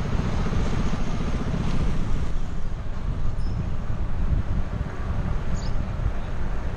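Wind buffeting the microphone of a camera riding along on a moving bicycle: a steady, heavy low rumble, with road noise underneath.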